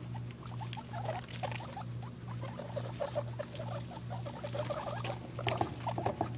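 Young guinea pigs squeaking in many short, quick chirps, with the rustle of them scurrying over wood-shaving bedding.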